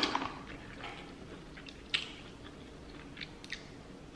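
A person chewing a mouthful of sauce-drenched seafood boil, with soft wet mouth clicks and smacks, a sharper one at the start and a few faint ones later.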